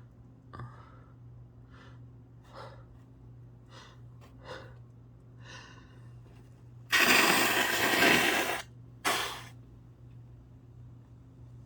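A person's short, hitching breaths building up to a sneeze, then a loud, drawn-out sneeze about seven seconds in and a second, shorter sneeze about two seconds later.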